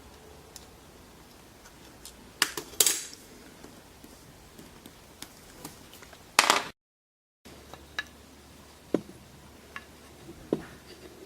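Scattered clinks and knocks of hard parts and tools being handled and set down on a workbench, with a few louder clatters and a brief dead-silent dropout partway through.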